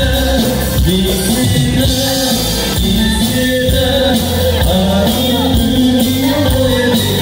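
Amplified live band playing an Okinawan sanshin-band song, with a singer over a steady electric bass line through the PA.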